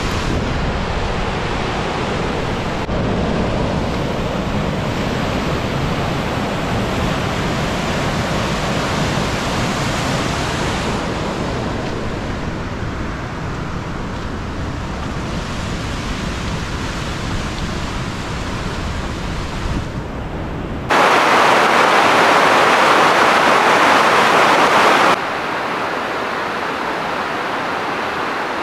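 White-water river rapids rushing over rocks, a steady loud noise of moving water. It shifts suddenly in level and tone a few times, and is loudest and brightest for a few seconds about three-quarters of the way through.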